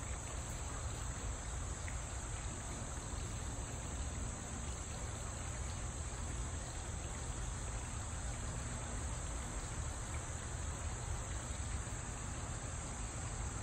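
Steady ambience: insects droning at a constant high pitch over a low, even rumble, with no distinct events.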